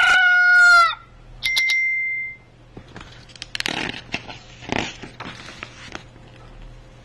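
A recorded rooster crow played from a children's sound book ends with a falling note about a second in, followed by a short ringing tone. Then comes the soft rustle of a paper page being turned.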